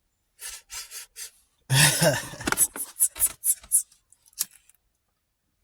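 Packaging being handled and torn open: a run of short scraping, rubbing strokes, with a loud longer one about two seconds in and a quick series of short ones after it.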